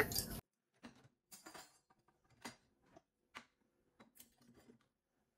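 Faint clinks of gold-coloured metal serving utensils being set into a dishwasher's cutlery basket and rack: about five light clicks spread a second or so apart.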